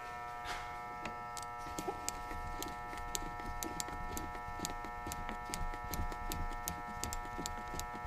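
A motocross fork's clicker damping adjuster being turned out with a screwdriver, its detents clicking evenly about three times a second as it is backed all the way off.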